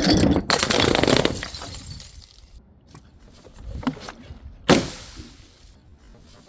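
Glass shattering, followed by a dense crackle of shards clattering and tinkling that fades out over about two seconds. A few small clinks follow, then one sharp knock near the end.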